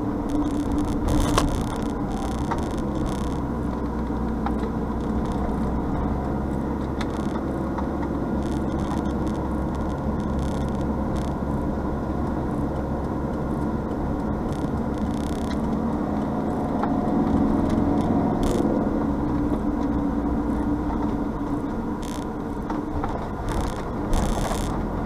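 Engine and tyre noise of a car on the move, picked up by a windscreen dashcam inside the cabin: a steady drone with scattered light rattles and clicks.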